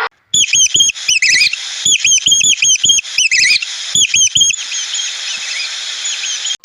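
Small bird chirping: a quick series of short, high chirps for about four seconds, then fainter chirps over a steady hiss.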